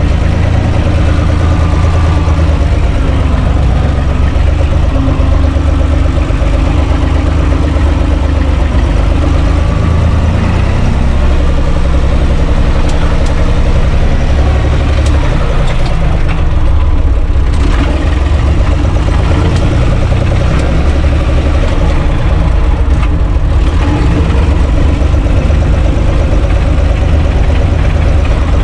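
Universal U445 DT 4x4 tractor's diesel engine running loud and steady while the tractor is driven, heard from the driver's seat.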